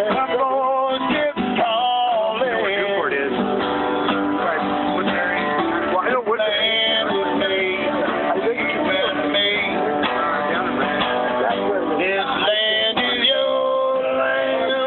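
Acoustic guitar strummed steadily, with a man singing a folk song over it.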